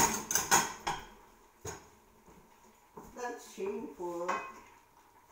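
Dishes and metal cutlery clattering as they are handled, a quick run of sharp clinks in the first second and one more clink shortly after.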